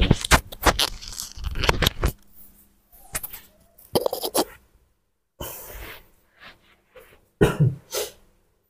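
Irregular crinkles and crunches of a small plastic packet being squeezed and bitten by a baby monkey, thickest in the first couple of seconds and again near the end.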